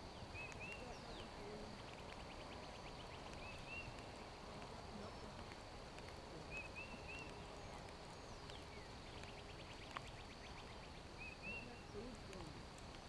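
Faint outdoor ambience by a pond with birds calling: a short rising-and-falling phrase repeats about every four to five seconds, with quick rattling trills in between.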